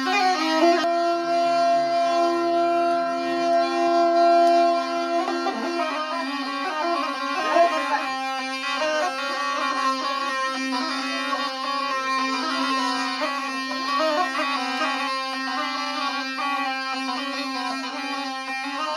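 Instrumental folk music: a steady droning note held throughout, with a melody moving over it that becomes busier about a third of the way in.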